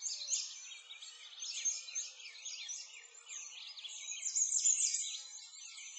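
A chorus of many songbirds chirping and singing at once, with quick high chirps overlapping without a break.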